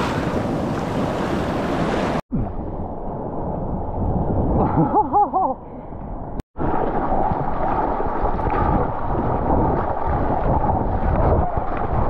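Seawater rushing and splashing close to a mouth-mounted GoPro as a surfer paddles through broken whitewater. The sound cuts out abruptly twice and turns duller after the first cut. A brief wavering pitched sound comes about five seconds in.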